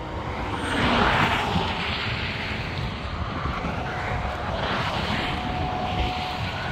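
Steady distant engine noise, a low rumbling drone that swells and eases, with a faint steady whine joining about two-thirds of the way in.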